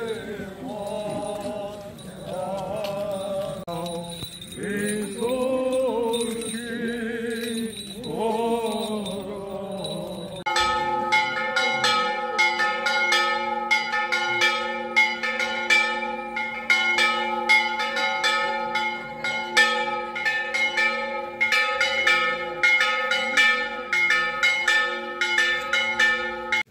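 Voices singing in procession, then about ten seconds in, church bells break in and ring a rapid festive peal, several bells struck quickly over one another.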